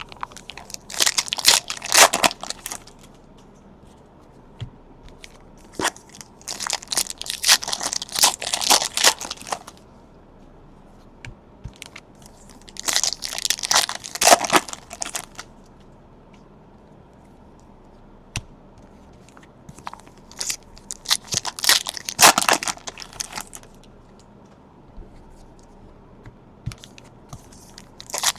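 Trading card packs being torn open, with the wrappers crinkling and tearing in five separate spells of a few seconds each.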